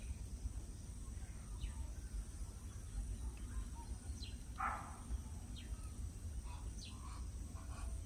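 Faint outdoor ambience: scattered short bird calls over a steady high insect drone, with one louder call about four and a half seconds in.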